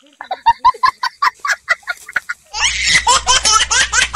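A person laughing: a run of quick, high-pitched 'ha-ha' pulses, about five a second. About two and a half seconds in, a louder, denser stretch of laughing takes over.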